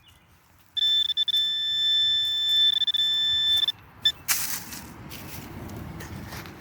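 Metal detector sounding a steady high-pitched signal tone for about three seconds and giving a brief blip, the sign that it is over a metal target. After that comes a burst of scraping and rustling as the soil is dug.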